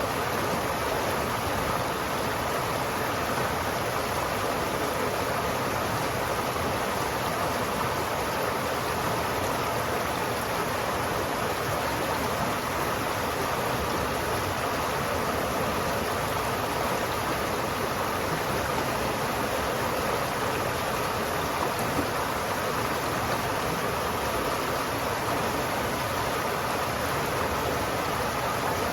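River water flowing steadily, a constant rushing sound with no breaks.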